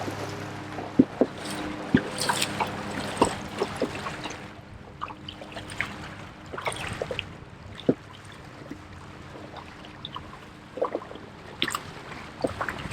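Water splashing and dripping around a fishing boat on a river, with scattered sharp knocks and clicks. A faint steady hum fades out about four seconds in.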